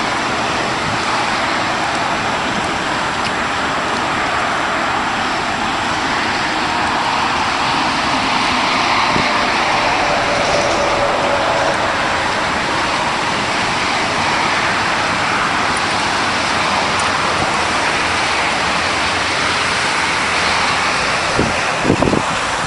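Steady noise of highway traffic, with a few brief low thumps near the end.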